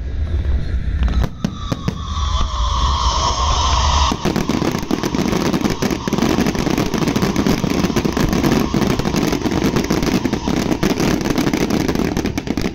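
Fireworks going off at close range: a high whistling tone from about one to four seconds in, then a dense, continuous crackle of bursting fireworks.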